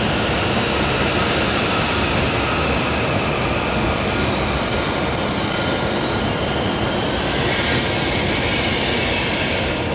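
E7 series Shinkansen train at the platform, a steady rushing noise from the train. A thin, high-pitched whine runs over it from about two and a half seconds in until nearly eight seconds.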